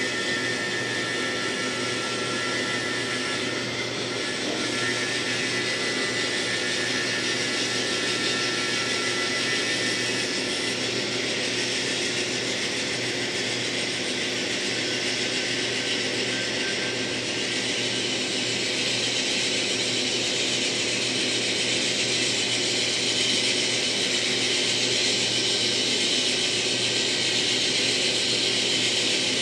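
N-scale model train running: the steady whir of the model diesel locomotive's motor and gears with its wheels clicking along the rails, getting a little louder as it comes closer.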